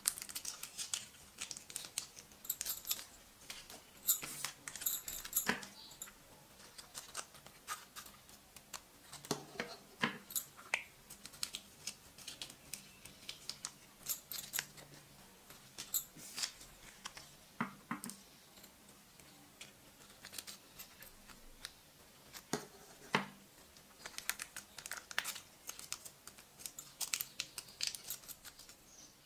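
Irregular small clicks and crinkles of a small plastic tube being handled and squeezed out over a glass baking dish.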